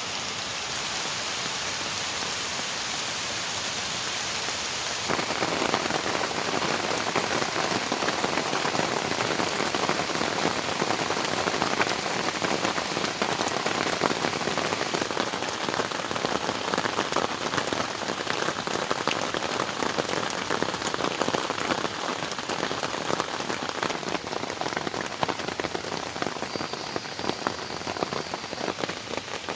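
Heavy rain falling, a steady hiss of water. About five seconds in it becomes louder and closer, with dense individual drops striking a surface.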